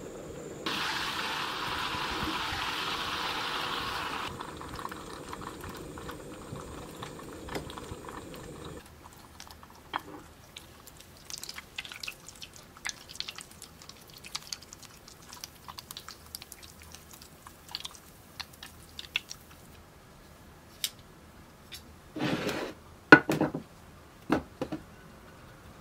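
Butter sizzling in a saucepan as it cooks and browns. A steady hiss gives way after about nine seconds to scattered crackles and pops from the foam. Near the end come a short scrape and a few sharp knocks.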